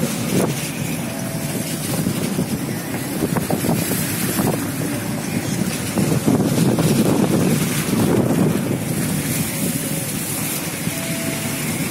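Wind rushing over the microphone and road noise from a moving car, a steady rough rumble that swells and eases.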